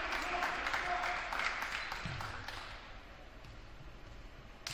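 A small crowd of spectators clapping and cheering in a gymnasium after a point is scored, dying away about two and a half seconds in.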